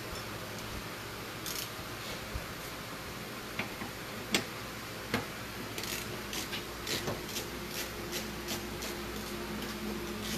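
Scattered light clicks and taps, the sharpest about four seconds in, over a steady low hum of workshop background noise.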